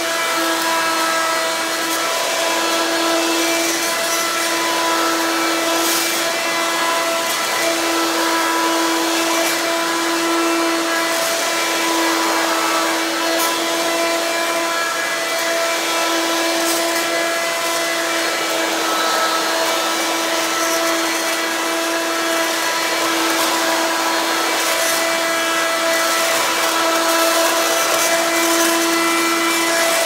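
Hoover Quik Broom S2141 stick vacuum running, a loud, steady whine at one unchanging pitch over a rush of air. It is pushed across hardwood and tile floors, with a few faint clicks along the way.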